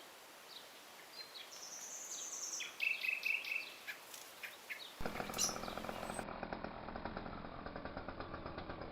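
Birds chirping and whistling over faint outdoor background. About five seconds in there is an abrupt switch to a 53cc petrol strimmer engine running steadily.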